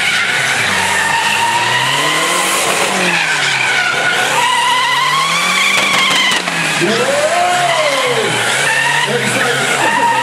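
A Chevrolet Chevette's engine revving up and down over a continuous, wavering tyre squeal as the car slides through donuts with its rear tyres smoking.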